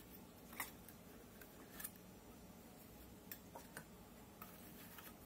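Near silence broken by a few faint, short clicks and light taps as metal fidget spinners and their round tin cases are handled.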